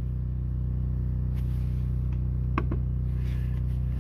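Diesel generator running steadily with an even low hum, loaded by the inverter/charger bulk-charging the battery bank at a 20% charge rate. Two light clicks come about two and a half seconds in.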